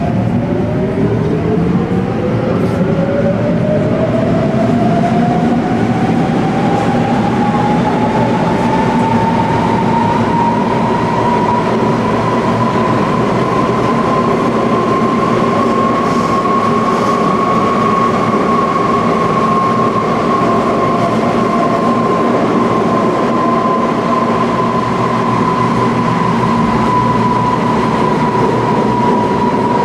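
Naples Metro Line 1 train running. The whine of its electric traction motors rises steadily in pitch over the first ten seconds or so as the train gathers speed, then holds level at cruising speed over a constant rumble of wheels on track.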